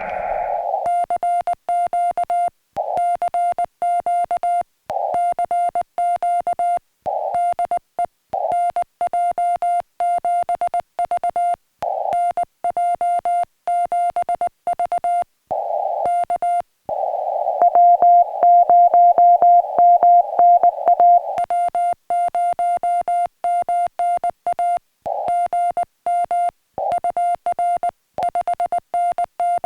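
Morse code (CW) from a portable ham radio: a single steady beep keyed on and off in rapid dots and dashes. About two thirds of the way in it gets louder for a few seconds, with hiss around the tone.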